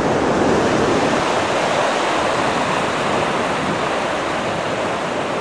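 Atlantic Ocean surf washing on the shore, a steady rushing with no single wave break standing out.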